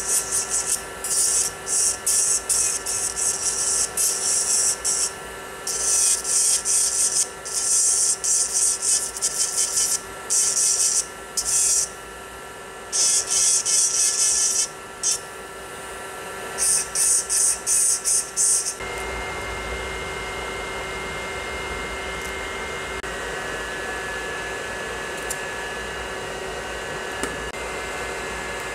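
Electric nail drill (e-file) with a small bit grinding gel from around rhinestone parts on a fingernail: short stop-start bursts of high, hissing grinding over the motor's steady whine. About two-thirds of the way in, the grinding stops and a steady whirring hum takes over.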